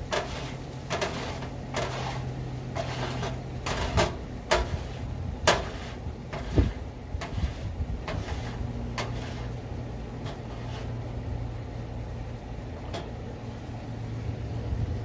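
Wire grill brush with a metal scraper scraping and knocking loose charred debris off a metal grease drip pan: irregular scrapes and sharp knocks, frequent in the first half and sparser after that.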